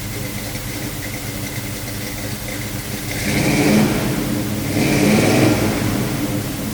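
1986 Chevy truck engine idling, blipped twice: two short revs, about three seconds in and again about five seconds in, each settling back to idle.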